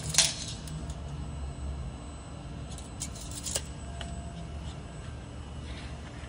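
Sheet-metal blank being handled on a press brake's die, with a sharp metallic click just after the start and a few lighter knocks around three seconds in, over a steady low machine hum.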